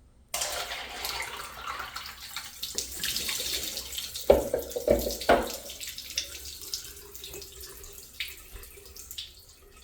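Miniature open-rim toilet flushing: water rushes in suddenly and then trickles away, with three loud knocks about halfway through. This is a flush test with a grocery bag, which the flush fails to clear.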